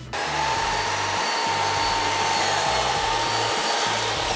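Kobalt sliding miter saw switched on and cutting a taper through a wooden stool leg: the motor starts suddenly and runs steadily with a high whine. Near the end it is released and begins to wind down.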